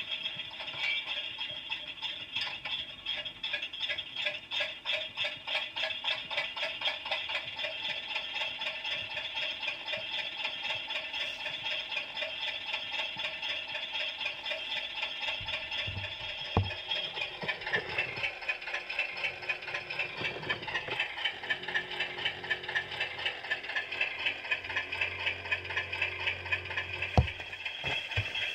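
Garden-railway diesel locomotive's engine running with a fast, even rattle. About halfway through, its pitch shifts and a lower hum comes in. There are a couple of single knocks.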